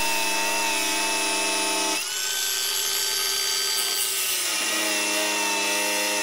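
Cordless angle grinder cutting through an 8 mm HDPE plastic sheet, its disc melting the plastic as it cuts. It starts abruptly as a steady whine that changes pitch about two seconds in and changes back near the five-second mark.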